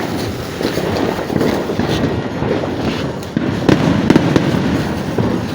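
A 'Diablo sawa' string of 1,000 firecrackers going off in a rapid, unbroken crackle of small bangs, with a few louder bangs about four seconds in.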